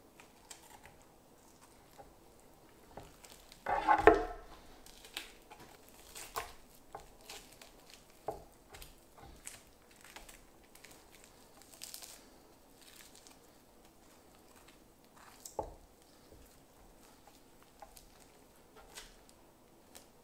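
A boning knife working meat off a venison hind leg on a wooden board: soft scrapes, rustles and ticks of the blade and the handled meat. There is a louder knock about four seconds in and a smaller one near sixteen seconds.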